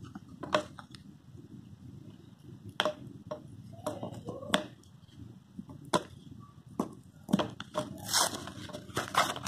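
Product packaging being handled and opened by hand: irregular sharp clicks and light crackles, coming thicker near the end.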